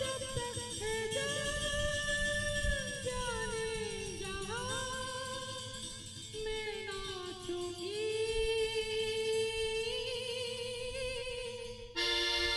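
Adivasi band playing a timli tune: a lead melody that slides and bends in pitch, over drums and bass. Near the end it cuts abruptly to steady keyboard notes.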